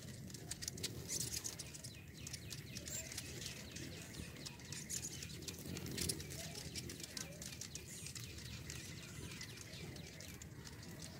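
Many hummingbirds chipping and chattering in quick runs of short, sharp high notes, over the low hum of their wings as they hover and chase one another.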